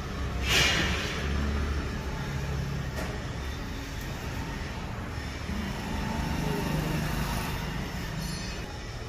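Automatic (non-hydraulic) surface grinder running: a steady low motor hum and mechanical rumble, with a brief rushing noise about half a second in.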